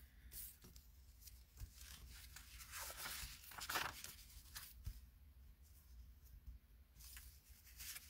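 Faint rustling and sliding of cardstock pieces handled by hand on a tabletop, with a few louder brushes around three to four seconds in.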